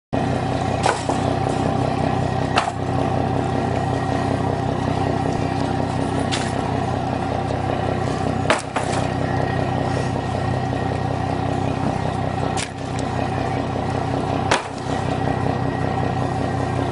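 Lobster boat's engine idling steadily, with sharp knocks and clatter from wire lobster traps being handled, about six times.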